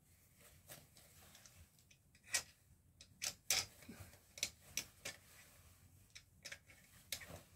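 Irregular light clicks and clacks of curtain hooks being fitted onto the runners of a ceiling curtain track, a dozen or so sharp ticks spaced unevenly.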